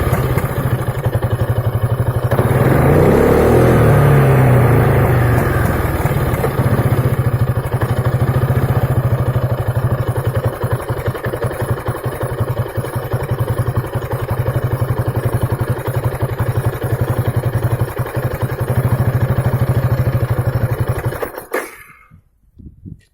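2003 Piaggio Beverly 500ie scooter's single-cylinder engine running unevenly at idle, misfiring and popping ("popcorn"), with a brief rev a few seconds in; it stops abruptly about 21 seconds in. The rough idle and stalling are the fault the owner traced to a failed ECU.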